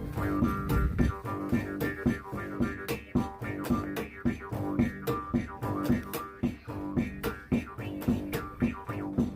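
Music with plucked notes over a steady, even beat.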